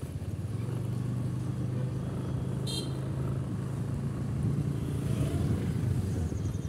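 Motorized two-wheeler's engine running steadily while riding through city traffic, with a short horn beep about three seconds in.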